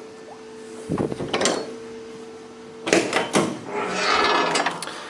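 A few knocks and clunks, a cluster about a second in and another about three seconds in, then a brief hiss, over a steady low hum.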